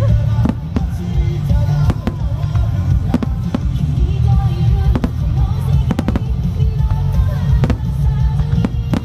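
Aerial firework shells bursting in the sky, about a dozen sharp booms at uneven intervals over a continuous low rumble, with music playing alongside.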